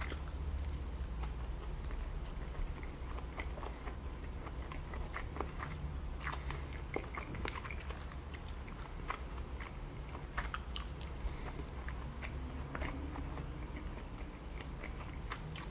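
Close-miked chewing of tamago (egg) nigiri sushi, with many wet mouth clicks and smacks.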